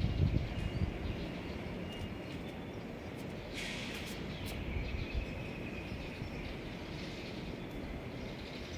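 Outdoor ambience: a steady low rumble with a few high bird chirps, and a short sharp high-pitched call about three and a half seconds in.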